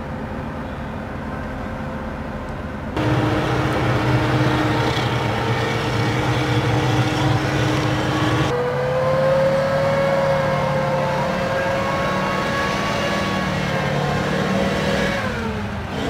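Tracked amphibious assault vehicles running, engine and drivetrain giving a steady drone with a whine over it. The sound changes abruptly twice, getting louder about three seconds in and taking on a higher whine a few seconds later.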